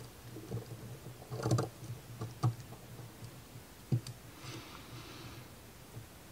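Light clicks and knocks of laser-cut plywood model parts being handled and pressed together with a small hand tool, with a short scratchy rub about four and a half seconds in.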